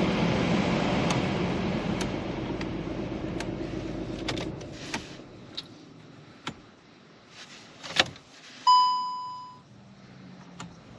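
Skoda Fabia heater blower fan running at its top speed (speed 4) with a steady rush of air, then switched off and winding down about four to five seconds in. Several sharp clicks follow, and near the end a single electronic beep sounds for about a second.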